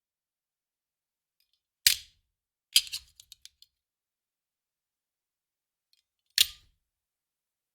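A handgun magazine thrown down and landing three times. Each landing is a sharp clack: one about two seconds in, another about a second later followed by a few small bouncing rattles, and a third near the end.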